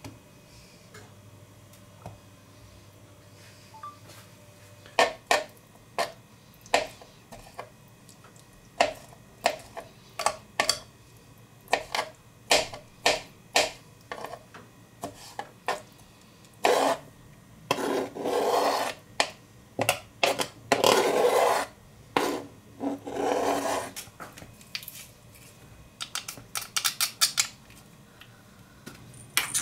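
Kitchen knife chopping mushrooms and broccoli on a cutting board: irregular sharp taps starting about five seconds in, a few longer scraping strokes of a second or two each in the middle, and a quick run of taps near the end.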